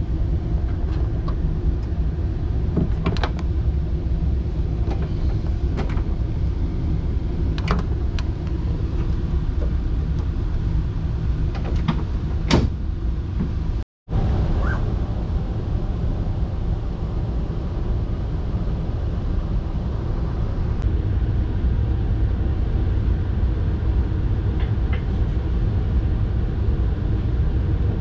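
Steady low hum inside a stationary Saphir Odoriko electric train car, with a few sharp clicks in the first half. The sound cuts out for a moment about halfway.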